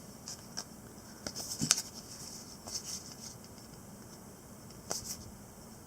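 Trading cards being handled: a scattering of light clicks and scrapes, with the sharpest a little under two seconds in and a quick double click near the end.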